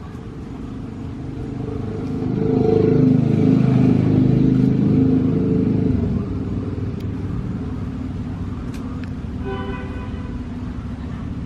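Low engine rumble of a passing motor vehicle, swelling about two seconds in and easing off about six seconds in to a steadier lower drone. Near the end a held tone of several stacked pitches sounds briefly.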